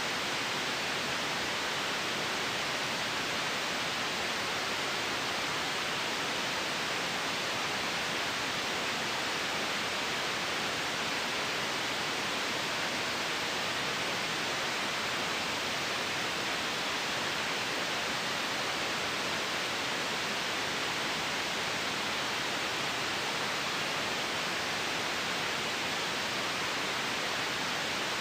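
Steady generated white noise: an even, unchanging hiss with no breaks or events.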